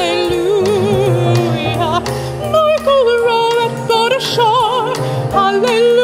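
Soprano voice singing a spiritual with a wide vibrato, accompanied by piano and drums.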